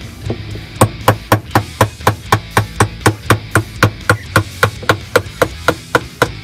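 Claw hammer striking a steel tool held against the centre hub of a top-load washing machine's tub: quick, steady blows, about four a second, starting about a second in. The hammering is to free the hub so the washer's clutch assembly can be taken out.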